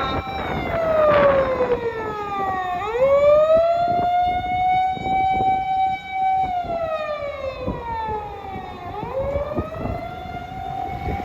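Japanese fire-rescue vehicle's siren sounding on an emergency run: a long wail that holds high, slides slowly down, then swoops back up to hold again, twice over, with vehicle and wind rumble underneath.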